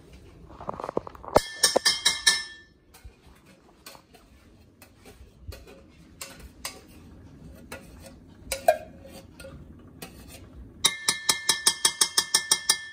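Kitchen clinks and knocks, then near the end a metal spoon tapping and scraping fast inside a tin of coconut milk, the can ringing with each stroke as thick coconut cream is scooped out.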